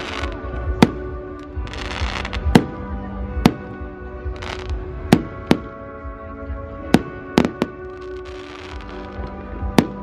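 Aerial firework shells bursting in a display: about nine sharp bangs at irregular intervals, with stretches of hissing crackle between them. Music plays steadily underneath.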